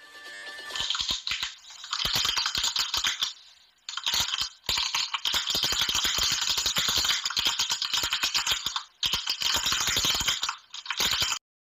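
Typing sound effect: a fast run of key clicks that starts about a second in and breaks off briefly a few times.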